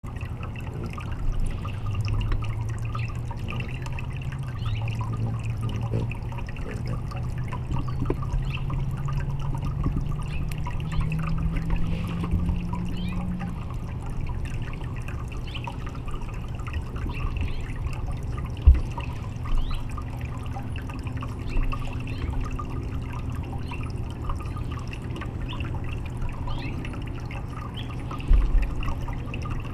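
Thin water streams of a small fountain trickling and splashing into a basin, over a low steady hum. Two short knocks stand out, one about two-thirds of the way through and one near the end.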